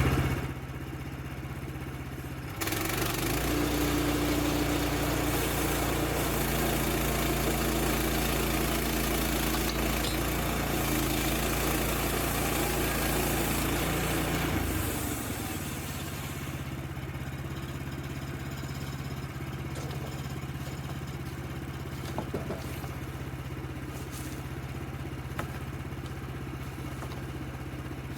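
Woodland Mills HM-126 portable bandsaw mill's petrol engine running steadily. From about two and a half seconds in until about fifteen seconds it runs louder, with added noise as the blade cuts through the log, then settles back to a quieter steady run.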